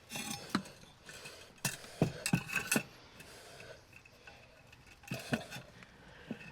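Clinks and knocks of metal tools and fittings being handled while working on a gas water heater's burner parts. There is a quick cluster of sharp clicks around two to three seconds in and a few more near the start and past five seconds.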